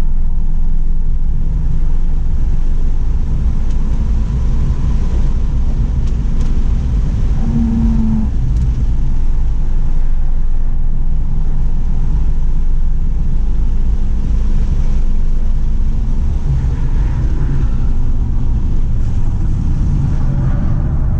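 Inside the cabin of a tuned 2017 Volkswagen GTI's turbocharged four-cylinder engine running under load on track, with road and wind noise. The engine note rises and falls without stopping, and a brief steady tone sounds about eight seconds in.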